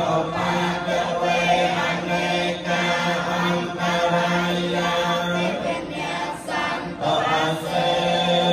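Theravada Buddhist monks chanting Pali blessing verses in unison on a steady low reciting tone, with brief breaks for breath.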